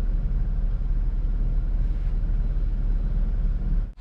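Steady low rumble of a car's cabin noise, engine and road, even in level, cutting off abruptly just before the end.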